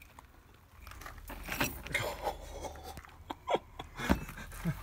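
Steel rings of butted chainmail clinking and jingling as the mail is gripped and handled. Near the end, a dog gives a few short falling whines.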